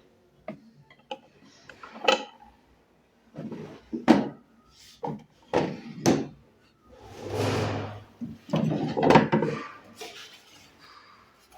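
Irregular wooden knocks and sliding scrapes from the wooden cabinet of an antique 1928 Singer sewing machine being handled. There are about a dozen separate knocks and two longer scrapes in the second half.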